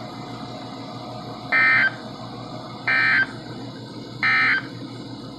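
NOAA Weather Radio EAS end-of-message signal: three short bursts of SAME digital data, a buzzy warble, about a second and a half apart, marking the end of the severe thunderstorm warning. Steady radio hiss runs underneath.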